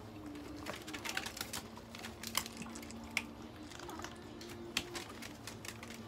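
Chihuahuas eating dry kibble: irregular crisp crunches and clicks as the food is bitten and chewed.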